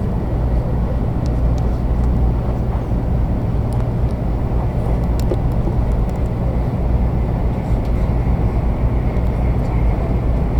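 Steady low rumble inside the passenger car of a 500 series Shinkansen train running on the line, the drone of wheels on the track and the running gear, with a few faint light clicks.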